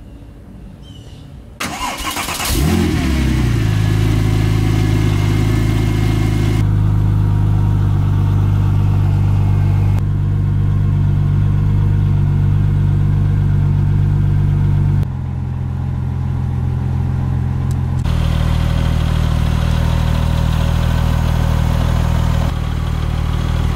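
2003 Porsche 911 Turbo's 3.6-litre twin-turbo flat-six turned over by the starter about two seconds in, catching within a second and settling into a steady idle. The idle tone shifts abruptly at a few points.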